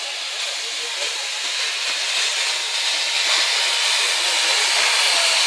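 Steam locomotive Ab 699 standing in steam, venting with a steady hiss that grows slowly louder.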